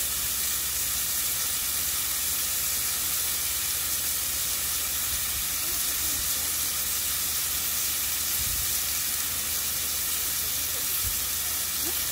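Pork belly slices and kimchi sizzling steadily in a hot griddle pan, a continuous frying hiss with a low hum beneath.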